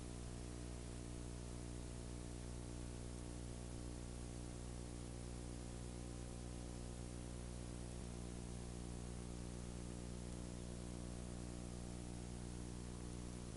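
Steady hiss with a low electrical hum and a ladder of its overtones: the noise of a blank stretch of recording with no programme sound.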